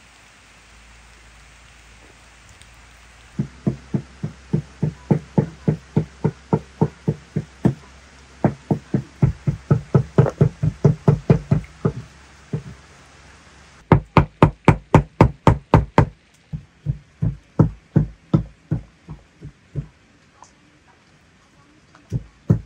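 Rain hissing steadily, then runs of sharp, rhythmic knocking of about four to six knocks a second, pausing now and then. The last run slows and fades.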